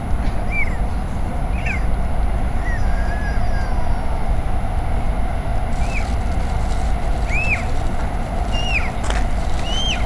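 Steady low urban rumble, with short bird-like chirps, each rising then falling, repeating every second or so.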